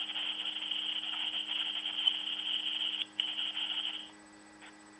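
Scratchy hissing noise from a voicemail recording played back through a phone's small speaker, dropping out briefly about three seconds in and stopping about a second later.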